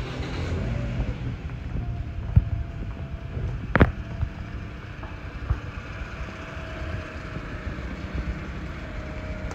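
Rain and wind noise on a phone's microphone, a steady low rumble with a hiss above it, broken by a few sharp knocks, the loudest about four seconds in.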